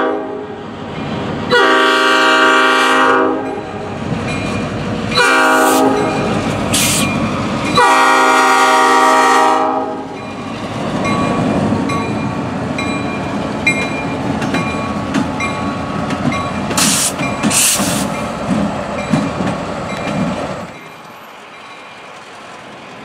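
Norfolk Southern GP38-2 locomotive's horn sounding the close of a grade-crossing signal: a long blast, a short one and a long one. Then the locomotive's diesel and its wheels clicking over the rail joints as it rolls across, with a crossing bell dinging and two brief high squeals, until the sound drops away near the end.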